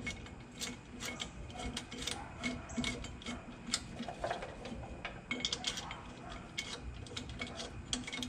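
Lug nuts being spun on by hand onto the studs of a 2-inch wheel spacer: light, irregular metallic clicks and ticks of nuts on threads and against the spacer.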